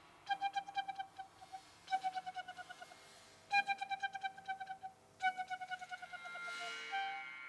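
Piccolo playing four bursts of a fast repeated note, about ten pulses a second, each burst starting loud and fading away. Near the end a steady lower ringing tone and a swelling hiss come in from the percussion.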